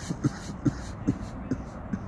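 Bong water bubbling in low, short gurgles, about two to three a second, as smoke is drawn through it during a hit.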